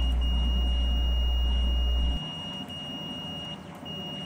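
A 61-340 digital multimeter's continuity beeper sounding a steady high beep while the relay contacts across its probes are closed, cutting out briefly a few times as the relay opens: the beep follows the laser cutter's firing signal. Underneath, a low hum stops about two seconds in.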